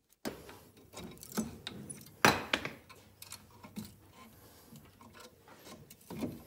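Light metallic clinks and scrapes of brake hardware being handled with hand tools as the caliper and pads are worked off a rusty disc brake, with a sharper knock about two seconds in.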